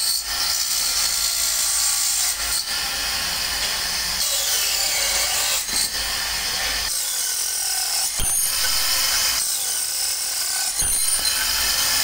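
Metalworking workshop machinery running steadily, a hissing mechanical noise with a sharp click about every two and a half to three seconds.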